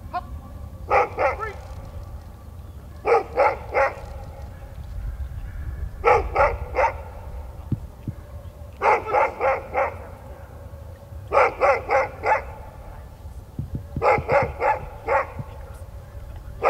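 A dog barking in regular bursts of three or four quick barks, one burst about every three seconds.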